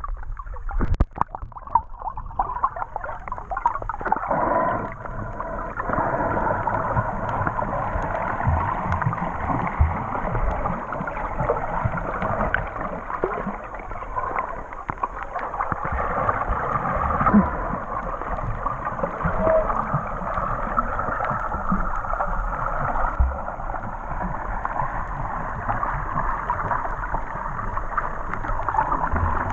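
Muffled underwater noise from a camera held below the sea surface while snorkeling: a steady rushing hiss with low knocks and rumble, after a few splashy clicks about a second in as the camera goes under.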